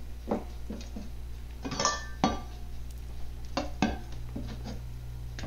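A large kitchen knife cuts raw pork shoulder into chunks on a plastic cutting board, giving a string of separate knocks as the blade meets the board. Around two seconds in there are two louder metallic clanks with a short ring as a stainless steel bowl is handled.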